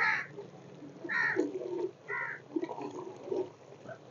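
Bird calls, three short ones about a second apart, over faint clatter of a spoon stirring masala in a clay cooking pot.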